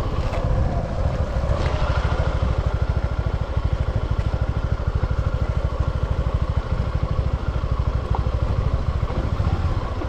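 Motorcycle engine running with a steady, rapid pulse of firing strokes.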